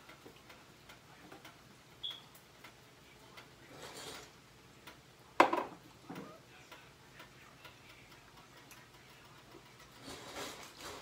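Kitchen handling noises while raw chicken legs are seasoned on a plate: scattered light clicks and brief rustles, with one sharp knock about five seconds in.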